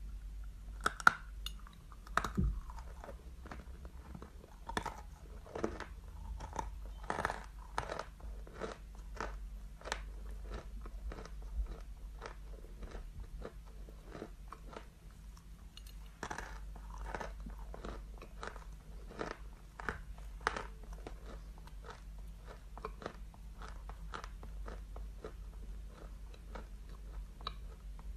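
A stick of chalk bitten into and chewed, with many sharp crunches that come in bursts; the loudest crack is about a second in.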